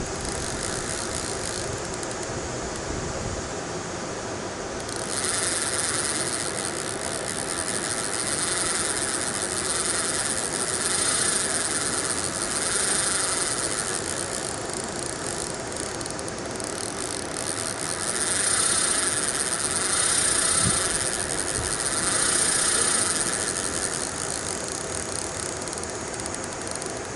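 Outdoor riverside ambience: a steady high hiss that grows louder about five seconds in, then swells and fades in waves every few seconds.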